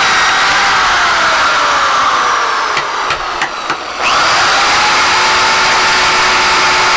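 Handheld electric drill boring a hole through a wooden handle blank. The motor's whine sinks in pitch as the bit bites, drops off for about a second and a half with a few light clicks, then spins back up to a steady whine.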